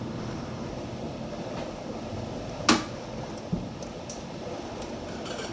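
A sharp knock, like an object being handled or set down, about halfway through, with a smaller knock just after it, over a steady low rumbling background noise.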